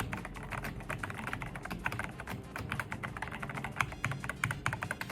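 Typing on an Attack Shark K75 transparent mechanical keyboard with white switches: a fast, irregular stream of key clicks and clacks.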